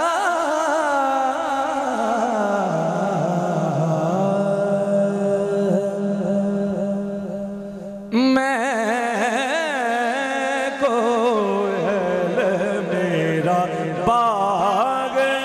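Male naat singer's long, wavering, ornamented sung phrases over a steady low held tone. The sound fades gradually, then a new loud phrase starts abruptly about eight seconds in.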